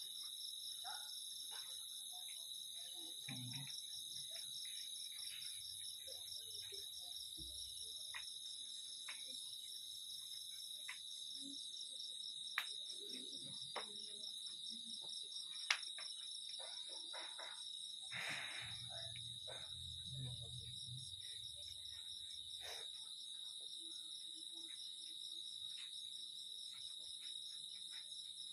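Night chorus of crickets and other insects, a steady pulsing trill in several high pitches at once, broken by a few faint clicks.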